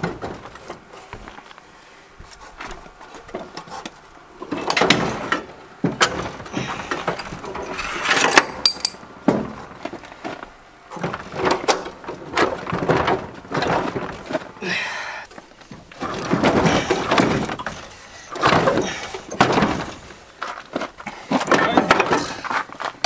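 Repeated bursts of clattering and scraping, each lasting a second or two, with sharp knocks inside them, about six times over the stretch.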